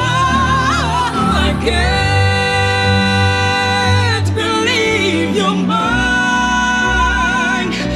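A man and a woman singing a soul ballad duet over a backing track, with vocal runs and two long held notes.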